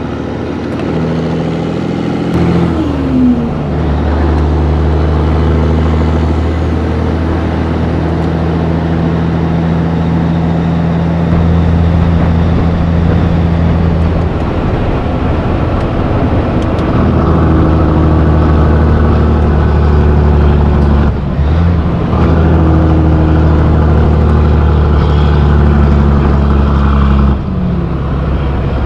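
Peterbilt 362 cabover's diesel engine pulling steadily under way. Its note changes pitch a few times and drops out briefly twice, once about three-quarters of the way through and again near the end.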